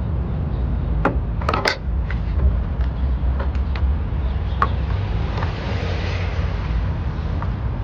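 Scattered sharp clicks and knocks of hand work on the car's intake parts, a cluster about a second in and another near the middle, over a steady low rumble.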